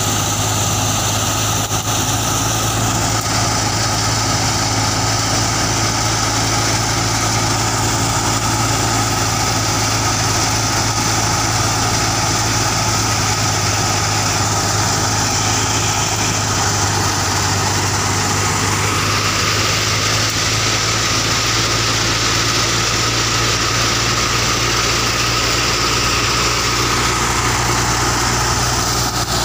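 Belt-driven wheat thresher running steadily at high speed off a Ghazi tractor: a constant low engine hum under the rushing hiss of the threshing drum and fan blowing out chaff as wheat straw is fed in. The hiss grows brighter about two-thirds of the way through.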